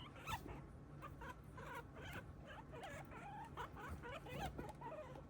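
Guinea pig squeaking for attention: a quick run of short squeaks that bend up and down in pitch, several each second, over a low steady hum.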